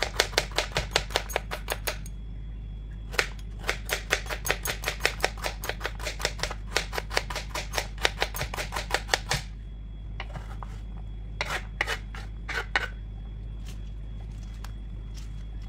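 Kitchen knife chopping white radish into small pieces on a wooden chopping board: quick strokes, about five a second, in two runs with a short break between. Near the end only a few scattered strokes, then the chopping stops.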